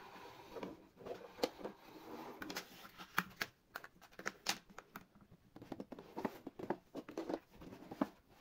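Irregular small taps and clicks mixed with rustling and scraping, with a busy stretch near the start and another in the second half.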